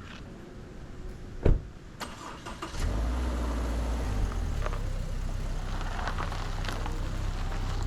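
A sharp thump about a second and a half in, then a car engine starts about three seconds in and runs steadily with a low rumble.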